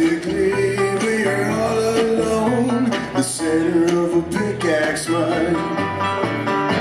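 Bluegrass string band playing live, banjo and acoustic guitar over a steady, regular bass line. This is an instrumental stretch of a folk-bluegrass song, with no lead vocal clearly carrying it.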